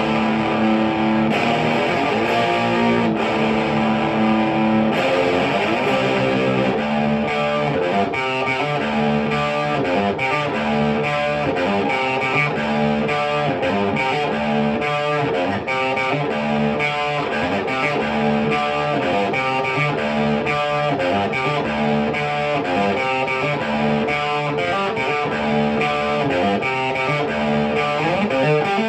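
Electric guitar, a 1986 Jackson Soloist Custom with a Seymour Duncan pickup, played through a Marshall JCM900 4502 combo amp with Celestion G12T-75 speakers. It starts with held notes, then from about seven seconds in plays a fast, evenly repeating riff of short notes.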